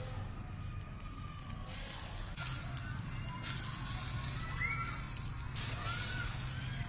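Charcoal fire crackling and hissing, swelling in several surges of hiss, over a steady low hum, with a couple of short chirps about two-thirds of the way through.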